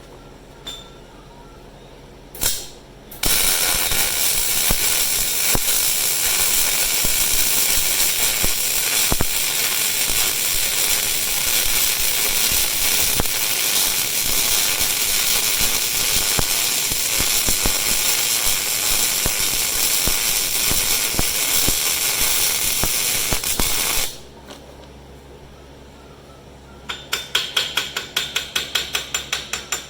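Electric arc welding on a cast-iron engine block: two short strikes, then a steady arc noise for about twenty seconds that cuts off suddenly. Near the end, rapid evenly spaced hammer taps, typical of peening a fresh weld on cast iron.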